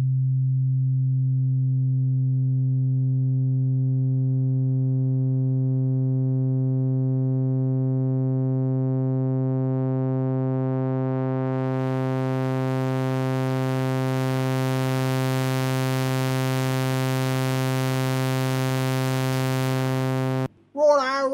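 A software synthesizer (Serum) holds one steady low note that begins as a pure sine tone. As its oscillator waveform is warped toward a sharp-edged shape, harmonics are added one above another and the tone grows steadily brighter. It cuts off suddenly near the end, a demonstration that more abrupt changes in the wave add more harmonics.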